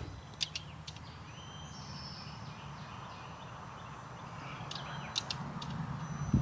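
Quiet background: a faint steady low hum and a thin high steady whine, with a few light sharp clicks about half a second in and again about five seconds in.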